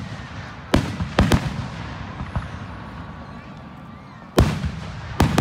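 Aerial firework shells bursting in the sky: sharp, echoing bangs, three in quick succession about a second in and two more near the end.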